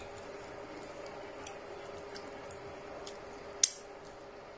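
Close-up eating sounds: fingers working soft pounded yam and soup, with small scattered mouth clicks and smacks and one sharper click a little before the end as a morsel goes into the mouth. A faint steady hum sits underneath.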